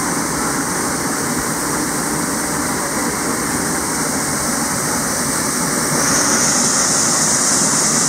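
Waterfall crashing into its plunge pool: a steady rush of falling water that grows a little louder and brighter about six seconds in.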